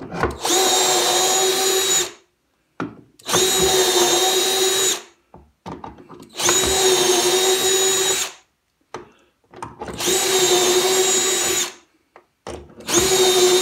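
Cordless drill boring shelf-pin holes through a shelf-pin jig into a plywood cabinet side. There are five short runs of about two seconds each at a steady pitch, with brief gaps and small clicks between them as the bit moves to the next hole. The last run starts near the end.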